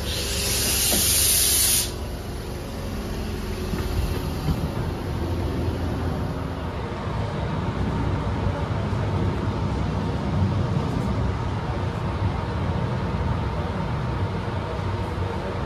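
Sydney Trains double-deck electric train standing at a platform: a loud hiss of air for about the first two seconds, then the train's steady low hum.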